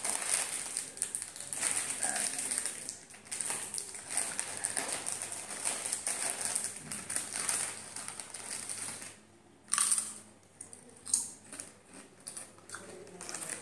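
A plastic potato-chip packet crinkling and rustling as it is torn open and handled. Near the end the crinkling dies down and there are a few sharp crunches as chips are bitten.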